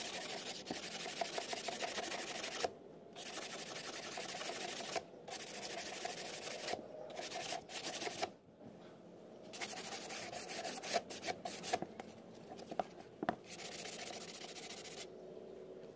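Sandpaper rubbed back and forth along the edge of a moulded fiberglass fairing panel, smoothing its rough edge. It comes in runs of quick strokes broken by short pauses, with a few light knocks near the end.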